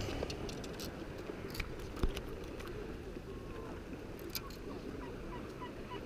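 Steady wind and sea noise on the microphone, with a few small clicks and a sharper knock about two seconds in.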